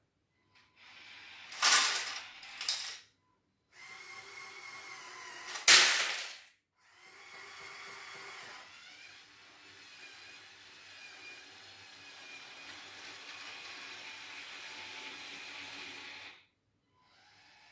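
Loose Lego bricks clatter into the plastic bed of a Lego Technic dump truck, dumped from a model rope shovel's bucket, in sudden loud bursts about two and about six seconds in. Then the shovel's electric motors and plastic gearing whir steadily as the upper body swings, stopping shortly before the end.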